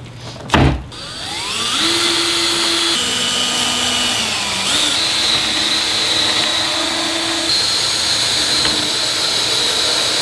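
A thump as the table is set down on its side, then a power drill spinning up with a rising whine and running steadily, its pitch stepping a couple of times, as it bores pilot holes for screws into the wooden table frame.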